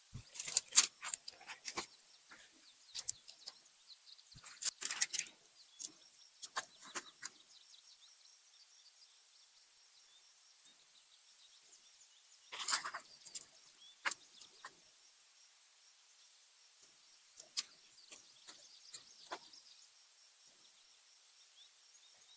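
Nylon tent fabric rustling and jointed tent pole sections clicking together as a tent is laid out and its poles assembled, in scattered short bursts with long quiet gaps, over a faint steady high hiss.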